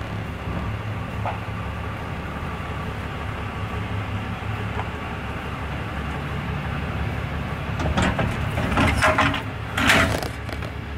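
Pickup truck engine running steadily at low speed while reversing. Near the end come several loud metal clanks and scrapes as the fifth wheel trailer's kingpin slides into the Demco Hijacker Autoslide hitch and latches into place.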